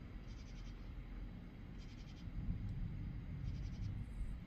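A katydid calling: a short raspy phrase of quick pulses, repeated evenly three times about every second and a half, over a steady low rumble.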